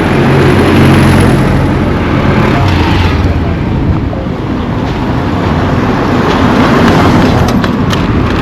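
Motor vehicles passing on the road: engine hum and tyre noise swell as one goes by about a second in and another around seven seconds in.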